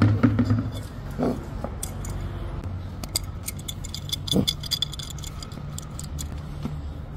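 Clinks and light knocks of a steel adjustable wrench being picked up and handled, with a cluster of bright metallic clicks about three to four seconds in and a single thud just after. A few sharp knocks sound in the first second.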